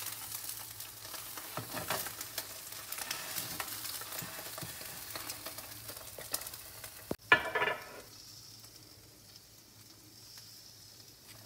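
Mackerel fillets sizzling and crackling in a hot, oiled grill pan, with many small spits and pops. About two-thirds of the way through comes a brief loud knock, after which the sizzle goes on fainter and steadier.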